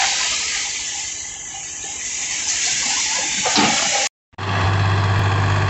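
A loud, steady rushing hiss as the load pours out of a raised tipping tractor trolley. It cuts off about four seconds in, and a tractor's diesel engine then runs at a steady speed.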